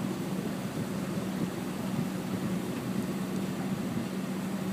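Motorboat engine running steadily, an even hum.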